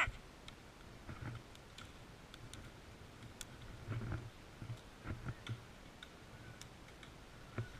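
Faint, scattered clicks and ticks, with a few soft low thumps about four and five seconds in.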